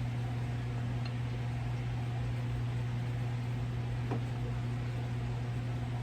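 Steady hum and whoosh of a Portacool evaporative cooler's fan running, with one faint small click about four seconds in.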